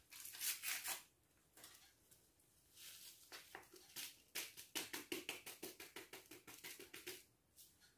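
Liquid poured from a bottle onto a bowl of salad, coming out in quick, irregular glugging pulses for several seconds. It starts with a couple of soft knocks and rustles as the bottle is handled.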